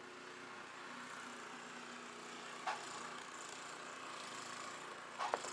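Snowblower's small engine running steadily.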